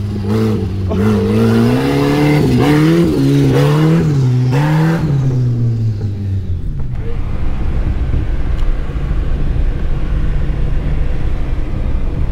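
An off-road vehicle's engine revving up and down under load, its pitch rising and falling, for about the first six seconds. It then gives way abruptly to a steadier low rumble of a vehicle driving over the trail.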